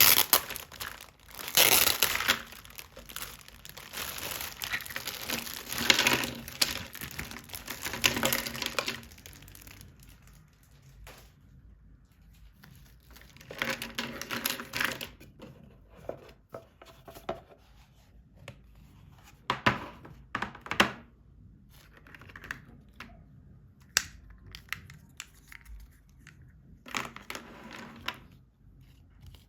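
Toy packaging crinkling and being torn open: a long stretch of rustling, then quieter spells broken by two more short bursts of rustling and a few sharp clicks.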